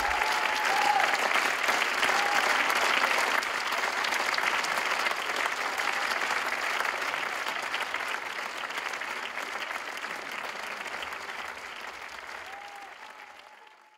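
Audience applauding, dense clapping that fades out steadily until it is gone near the end.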